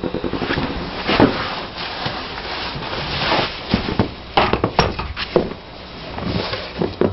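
Handling noise: scrapes, rustles and a string of knocks as equipment is moved about in a small room. No engine is running.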